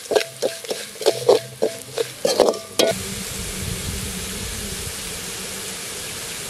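A ladle knocking and scraping in a pan about ten times as onions with mustard seeds and red chillies fry in groundnut oil, the pan ringing with each stroke. A bit under three seconds in, the stirring stops and a steady sizzle of the frying tempering carries on.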